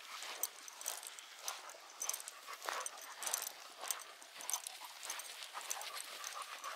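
Footsteps of a hiker walking a woodland trail, an irregular series of crunching steps with brush rustling.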